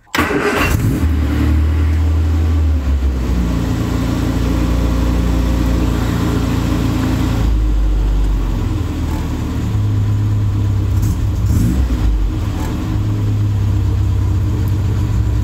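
1972 MG Midget's 1275cc A-series four-cylinder engine, newly fitted with electronic ignition, catching within about a second of starting. It then runs at a fast idle on part choke, its speed stepping up and down a few times.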